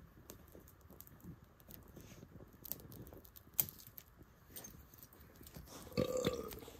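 Small fire of dry twigs and kindling crackling faintly, with scattered small pops and one sharper snap about three and a half seconds in. A brief, louder pitched sound comes near the end.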